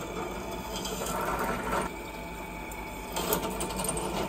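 Benchtop drill press running, a small drill bit cutting through square steel tube as the feed handle is pulled down. Steady motor hum under the noise of the bit in the metal, which changes about two seconds in and grows louder near the end.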